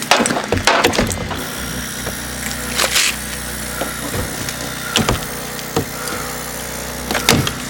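An engine running steadily with a low drone, under scattered sharp clicks and knocks of equipment being handled; the loudest knock comes about three seconds in.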